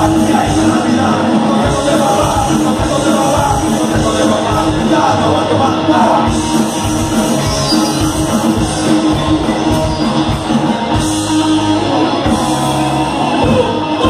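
Punk rock band playing live, loud: electric guitars and a sung lead vocal.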